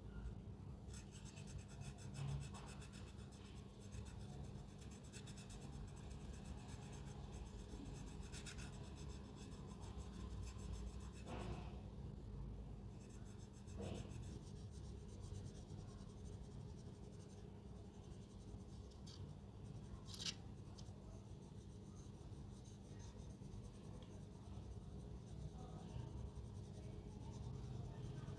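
Faint scratching and rubbing from hand work on a small die-cast model car, with a few light clicks over a steady low hum.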